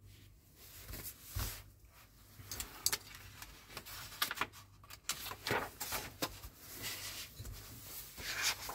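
Paper rustling, rubbing and light taps as a glossy magazine is handled and its cover and pages are turned back, ending in a louder swish of paper near the end.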